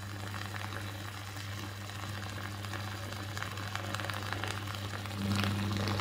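Mains electrode water heater running with current passing straight through the water, giving a steady low mains hum with a faint fizzing of bubbles. The hum grows a little louder about five seconds in.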